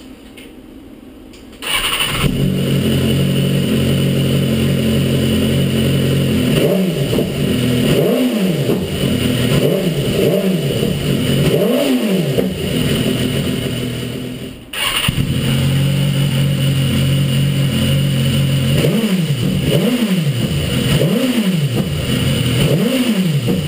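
BMW S1000RR inline-four sportbike engine, fitted with a Stage 1 DD exhaust conversion, starting up and idling, then blipped four times, each rev rising and falling back to idle. The sound breaks off briefly about halfway through, then the engine idles again and is blipped four more times.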